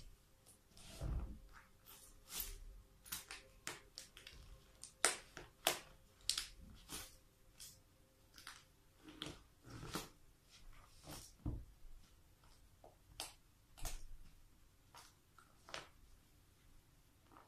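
Toy cars cracking and snapping under a high-heeled shoe: irregular sharp cracks and clicks, with a few dull thumps as the heel presses down.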